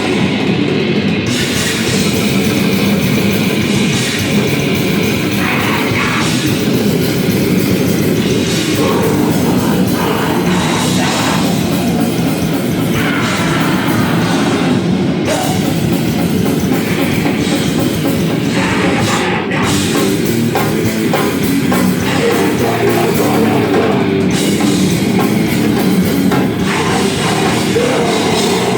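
A band playing loud, distorted heavy music live, with a drum kit and guitar, unbroken throughout.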